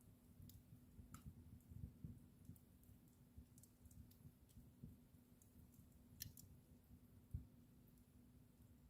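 Faint crackling of a wood fire in a fireplace: scattered small pops and ticks over a low rumble and a faint steady hum. There is a sharper pop about six seconds in and a dull thump a little past seven seconds.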